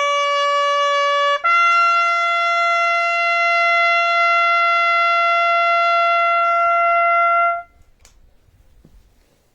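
A single brass band instrument holding one long note, then stepping up to a higher note about a second and a half in and sustaining it for about six seconds before cutting off.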